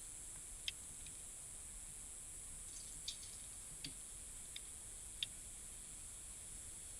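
Five faint, sharp clicks at irregular spacing, about a second in, near the middle and past the two-thirds mark, over a steady high hiss.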